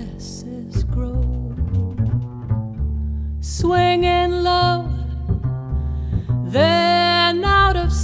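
Jazz ballad music: a double bass plays low notes throughout, and long held melody notes come in about three and a half seconds in and again near the end.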